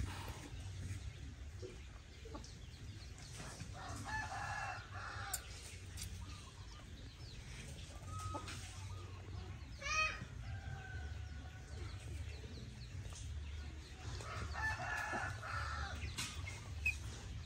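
A rooster crowing twice, about four seconds in and again about ten seconds later, with a short high call in between, over a low steady rumble.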